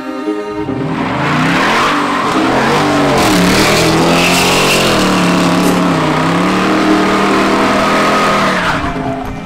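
Dodge Charger's 5.7-litre V8 revving hard, its pitch rising and falling, under loud tyre squeal as the rear tyres spin in donuts and a smoky burnout. The sound builds about a second in and fades near the end.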